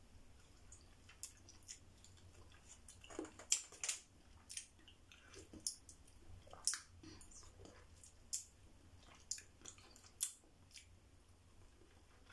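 A person biting and chewing a lemon wedge: faint, short mouth smacks and sucking clicks at irregular intervals.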